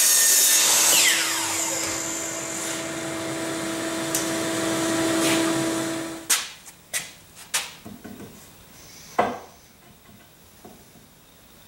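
DeWalt miter saw cutting through wood, then the blade spinning down with a falling whine while a dust-extraction vacuum hums steadily; the hum cuts off about six seconds in. After that come a few sharp wooden knocks and clatters as cut pieces of wood are handled and set in place.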